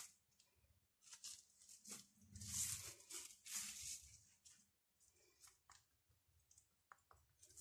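Faint crinkling and rustling of plastic cling film as dough is lifted and pressed on it, in several bursts over the first few seconds, then a few soft short ticks.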